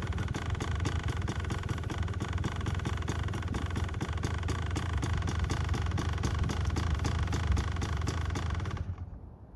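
Dirt bike engine idling steadily, then shut off near the end.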